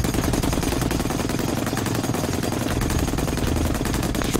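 M2 Browning .50-calibre heavy machine gun firing one long continuous burst of rapid, evenly spaced shots.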